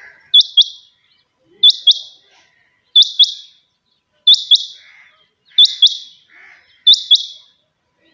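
A quail calling repeatedly. It gives six loud calls at even intervals of about one and a third seconds, each call a quick pair of sharp, high notes.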